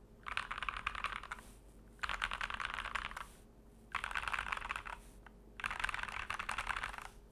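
Keychron K2 mechanical keyboard with lubed C3 Equalz Tangerine linear switches, plastic case and foam-filled, being typed on. The typing comes in four bursts of fast keystrokes with short pauses between.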